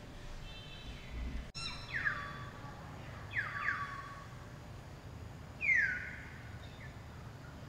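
High animal calls, four short squeals that each slide down in pitch: one about two seconds in, two close together a second and a half later, and the loudest near six seconds.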